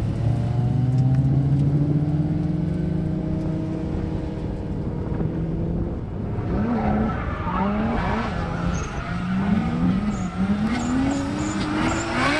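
Two drift cars running in tandem. At first their engines are held high and rise slowly in pitch. From about halfway the revs swing up and down as they slide sideways through a corner, tyres screeching.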